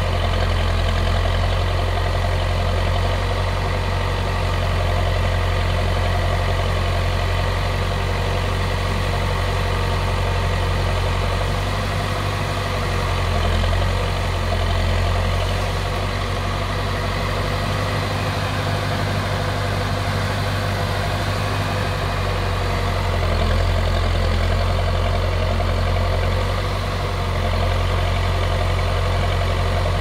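Escorts backhoe loader's diesel engine running steadily while its backhoe arm works, the level swelling and dipping a little from time to time.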